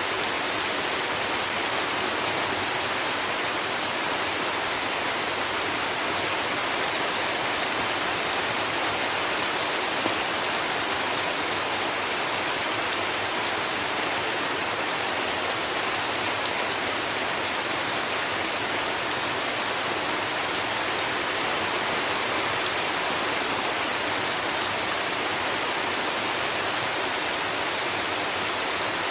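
Steady heavy rainfall: an even hiss with scattered individual drops ticking, and no thunder.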